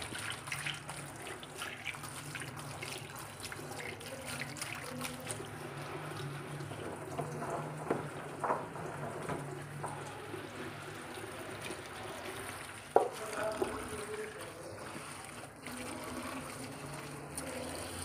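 Kitchen tap running steadily into a steel sink over wet chopped spinach that is being turned by hand. A single sharp knock about 13 seconds in.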